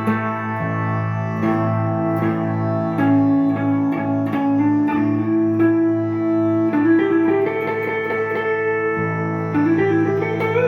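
Gibson ES-339 semi-hollow electric guitar played in a clean, jazzy improvisation with an oriental, Indian-tinged flavour: a single-line melody of picked notes moving over a steady low held note.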